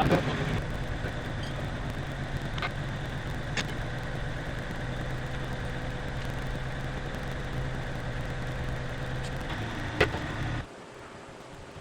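Grumman truck's engine idling steadily, with a few light clicks over it. It cuts off abruptly near the end, leaving a fainter hum.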